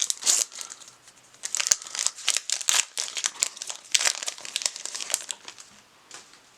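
Foil wrapper of a Panini NBA Hoops trading-card pack crinkling in quick, sharp crackles as it is ripped open, dying down about five seconds in.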